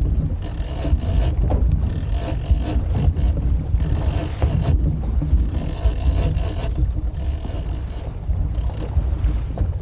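Wind rumbling on the camera and water washing past the hull of a small outboard boat under way. Short bursts of high hiss come every one to two seconds.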